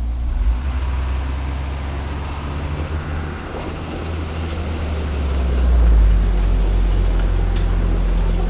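Heavy dump truck's diesel engine running hard under load up a steep gravel climb, a steady low drone that gets louder about six seconds in. The driver says the new truck can't manage the climb because its engine is not yet tuned in.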